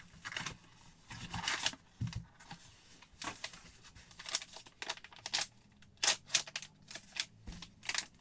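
Packaging of a sports card box being torn open by hand: irregular short rips and crinkles, loudest about six seconds in.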